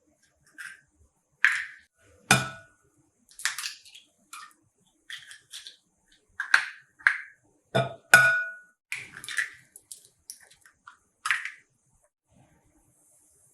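Kitchen clatter: a string of irregular short clinks, taps and knocks of dishes and utensils being handled. Two of the knocks are louder and ring briefly.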